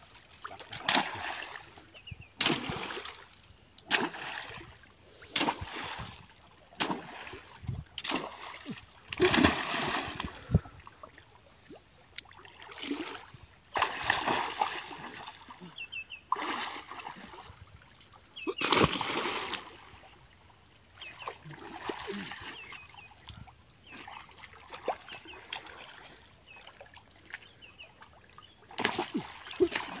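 Water splashing again and again, at irregular intervals, as a person wading waist-deep in a river lunges and thrashes forward into the water. There are sharp slapping strokes in the first several seconds.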